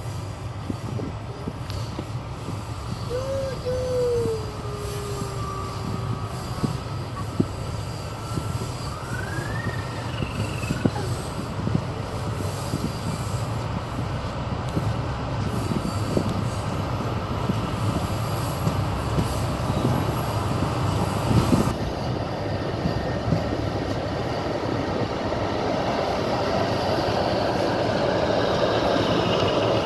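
A train running along the track, heard from a carriage window: a steady rumble of the wheels with scattered knocks over the rail joints and a couple of brief squeals, about 3 and 9 seconds in, growing a little louder near the end.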